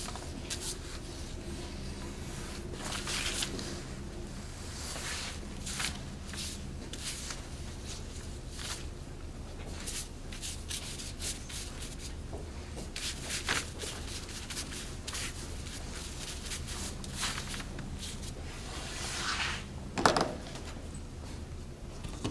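Chinese ink brush swishing and scraping across paper in a series of short strokes. One sharp knock about 20 seconds in.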